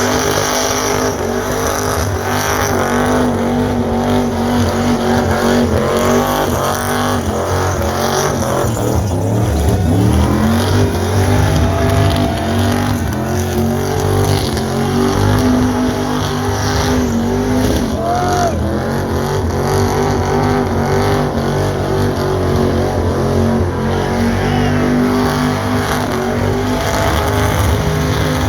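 Big-block V8 engine of a van held at high revs during a burnout, running hard and steady, with a brief drop and climb in revs about ten seconds in.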